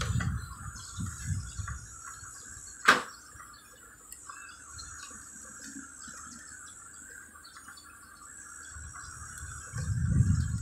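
Hands handling the wiring and plastic-covered parts of an air conditioner's circuit board: low rubbing bumps at the start and again near the end, and one sharp click about three seconds in, over a steady high-pitched drone.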